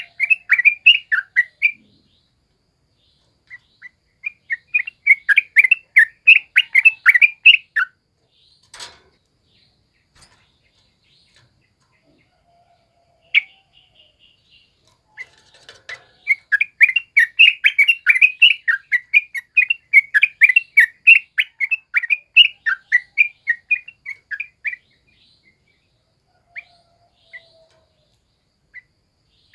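Yellow-vented bulbul (trucukan) singing in rapid runs of short, high chattering notes: three runs separated by pauses. A single sharp click sounds about nine seconds in.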